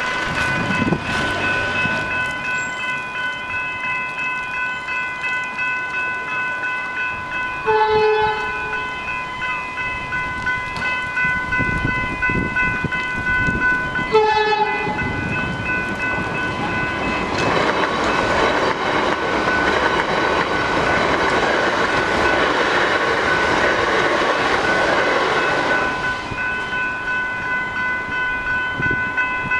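Level-crossing electronic bells (General Signals Type 3 e-bells) ring in a steady pulse while a train sounds two short horn blasts, one about 8 seconds in and one about 14 seconds in. The train then passes through at speed for about ten seconds. The bells cut off near the end, as the crossing clears.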